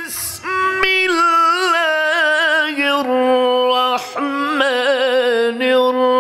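A man reciting the Quran in the melodic tajweed style: long held notes with wavering ornaments that glide between pitches. He takes quick breaths near the start and about four seconds in.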